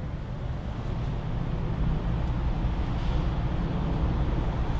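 Road and wind noise heard inside a moving Rolls-Royce with a window rolled down: a steady low rumble that grows slightly louder.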